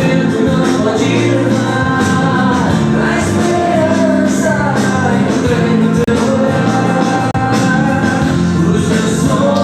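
A gospel song with singing voices over instrumental accompaniment.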